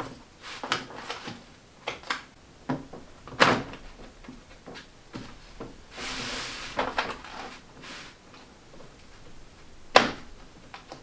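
Split PVC-pipe clamps snapping onto a PVC pipe frame over heavy plastic sheeting: a series of sharp clicks and knocks, with a longer rustle of the sheeting about six seconds in and one loud snap near the end.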